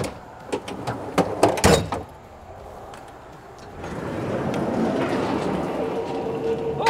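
Metal knocks and clanks of rescue gear being handled in an equipment compartment of a heavy rescue fire truck, then about three seconds of steady rolling as a compartment slide is pulled open.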